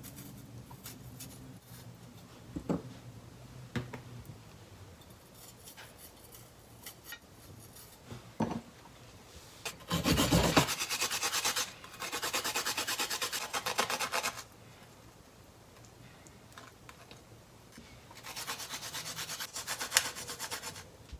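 Ginger root being grated by hand on a wooden-framed grater: quick back-and-forth rasping in three bouts, starting about ten seconds in, with the last near the end.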